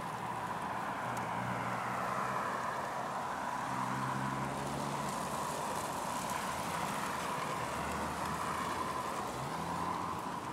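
Cars driving slowly past on a snow-packed city street in deep cold, about −10 °F, their tyres rolling over the cold snow, with a low engine hum coming and going. Beneath them runs a steady high hum of downtown traffic and ambience.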